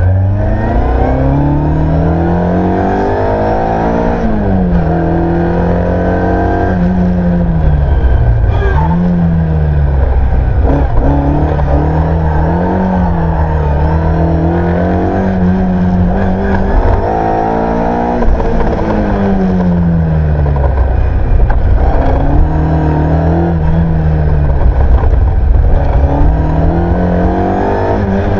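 Ford Escort Mk1 rally car's engine, heard from inside the cabin, driven hard: the engine note climbs under full throttle, then drops sharply on gear changes and lifts, over and over.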